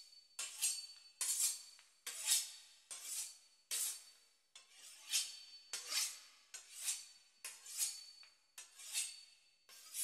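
A series of short metallic scraping strokes, roughly one a second at uneven spacing, some with a faint ring.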